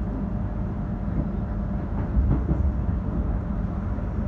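Commuter train running along the line, heard from inside the carriage: a steady low rumble of wheels on rail, with a brief knock a little after two seconds in.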